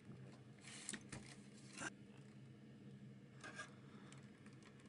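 Near silence over a low steady hum, broken by a few faint scrapes and rubs of the opened VCR's chassis being handled, the sharpest just under two seconds in and another about three and a half seconds in.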